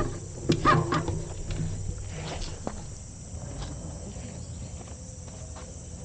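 Forest insects droning steadily, with a short voice-like call about half a second in and a low steady hum that fades after a couple of seconds.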